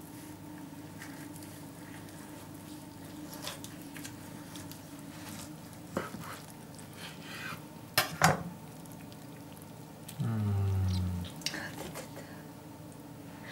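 Kitchen knife sawing through a roast leg of lamb wrapped in dried, browned caul fat on a wooden board: soft crackly cuts, then two sharp knocks of the blade on the board about eight seconds in. A man gives a brief low hum about ten seconds in.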